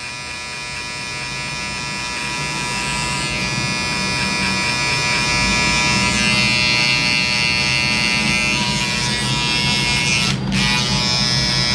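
Electric hair clippers running steadily while cutting hair over a comb at the side of the head. The hum grows a little louder over the first few seconds and dips briefly about ten seconds in.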